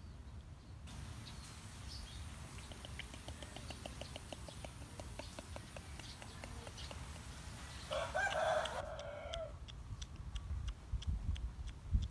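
A rooster crows once, about eight seconds in; it is the loudest sound here. Before it comes a long run of quick, evenly spaced ticks over a faint hiss.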